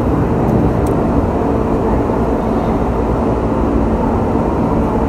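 Steady low rumble of road traffic and idling vehicles.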